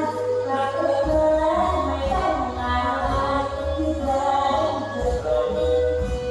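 Music with a sung melody over a heavy, pulsing bass, played loud through a small amplified loudspeaker rig.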